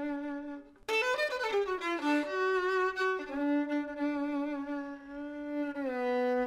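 Slow instrumental melody of long held notes, with a short break just under a second in followed by a phrase that glides up and down before settling into held notes again.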